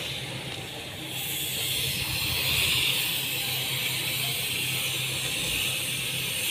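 Gravity-feed paint spray gun hissing steadily as compressed air atomises paint, coming on about a second in, over a steady low hum.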